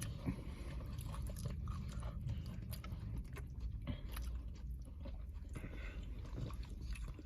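A person chewing food close to the microphone, with scattered small wet clicks and light crunches, over a low steady hum.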